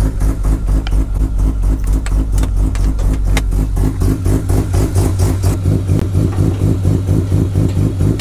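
Carbureted, street-ported Mazda 13B two-rotor rotary engine idling with a steady chomping lope, pulsing a few times a second.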